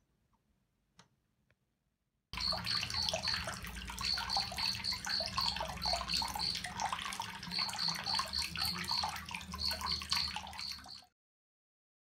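Hot-spring water pouring from a stone spout into a rock-lined bath: steady splashing and gurgling that starts suddenly about two seconds in and cuts off near the end. Runs of quick, high chirps sound over the water.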